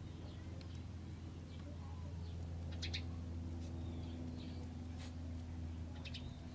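Faint outdoor background: a steady low hum with scattered small bird chirps, and a few light clicks about three and five seconds in.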